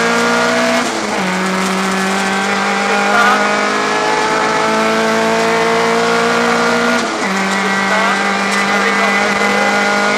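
Rally car engine heard from inside the cockpit under hard acceleration. Its pitch climbs steadily and drops sharply twice, about a second in and about seven seconds in, as the driver shifts up a gear.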